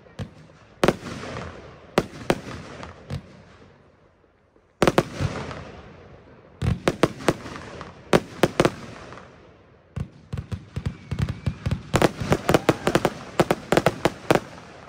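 Röder "Farb Tastisch" firework battery firing: sharp shots, each followed by a fading crackle of the bursts in the air. The shots come a few at a time at first, then in a fast run of many near the end.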